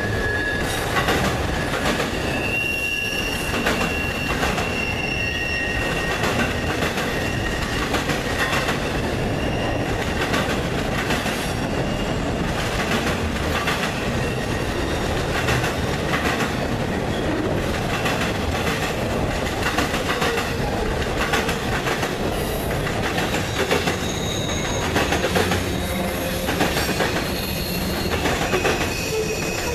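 Freight train cars rolling past at close range: a steady rumble of steel wheels on the rail with repeated clicks over rail joints, and high, thin wheel squeal that is strongest in the first few seconds.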